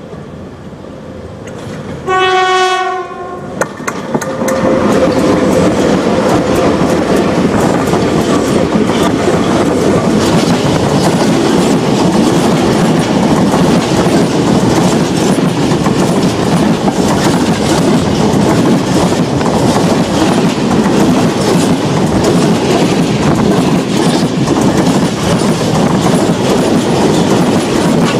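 PKP ET42 electric locomotive sounds a single horn note lasting about a second, about two seconds in. Then the locomotive and its freight wagons roll directly overhead: a loud, continuous rumble of steel wheels on rail with rapid clicks over the rail joints.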